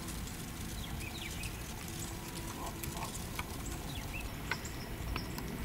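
Faint outdoor ambience: a steady low rumble with a few short, high, downward chirps and scattered soft clicks.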